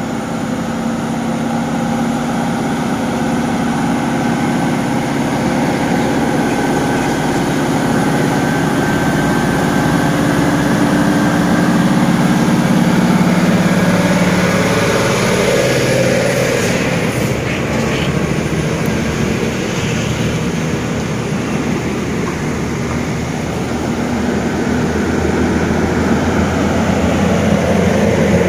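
Scania R580 tractor unit's V8 diesel engine working under heavy load as it hauls a multiaxle trailer carrying a 500-tonne mobile crane uphill, a steady low engine drone that grows louder and is loudest as the truck passes about halfway through.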